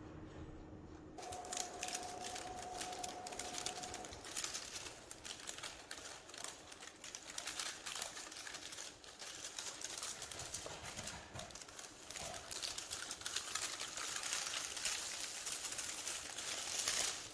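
UV DTF printer at work: the print-head carriage shuttling, with dense, irregular mechanical clicking and rattling. A brief steady whine sounds for the first few seconds of the run.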